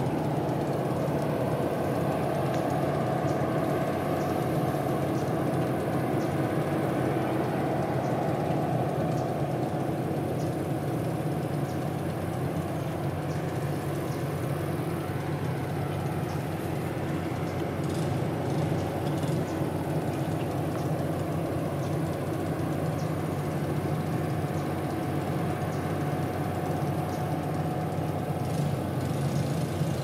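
Steady hum of marine diesel engines from a tugboat working at the stern of a tanker, a low drone with a faint held tone above it that does not change.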